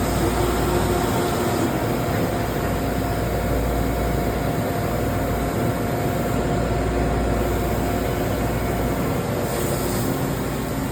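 Swiss-type CNC lathe running: a steady machine hum with a faint steady whine over it.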